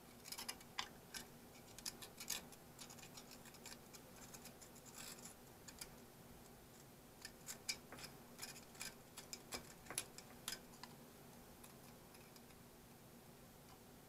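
Quiet, irregular clicks and scrapes of fingers and a small tool picking flaking rust and debris out of a rusty sump pump motor housing. The clicks come in clusters, thickest in the first two seconds and again for a few seconds in the middle, and thin out near the end.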